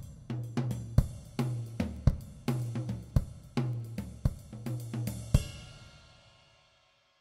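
Background music with a steady drum beat and bass, about one strong hit a second, ending on a last hit about five seconds in that rings and fades out.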